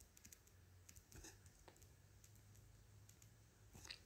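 Near silence broken by a few faint clicks of a stylus tapping a tablet screen while handwriting, with a small cluster of them near the end.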